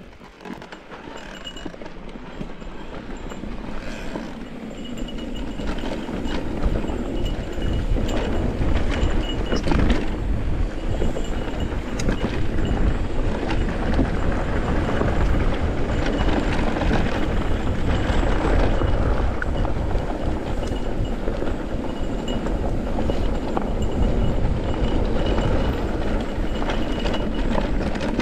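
Electric mountain bike riding down a dirt singletrack: tyres rumbling over the dirt, with the bike rattling and clattering over the bumps. The noise builds over the first several seconds as the bike picks up speed, then holds steady.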